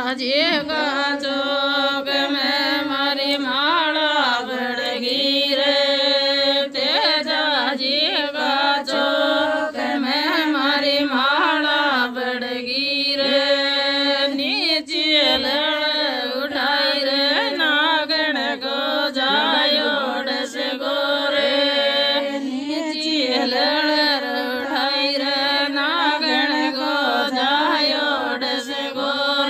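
Background music: a Rajasthani devotional song (Tejaji bhajan) with singing over a steady drone.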